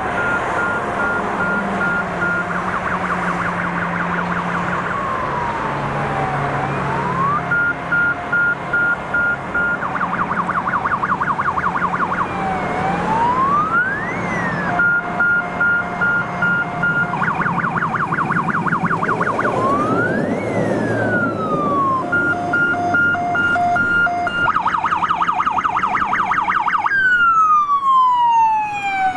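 Elektra GES-110 electronic siren on a MAN TGM fire engine, repeating a cycle about every seven seconds: a high-low two-tone, a fast warble, then a slow falling-and-rising wail. The truck's diesel engine runs underneath, and the siren is loudest near the end as the engine comes closest.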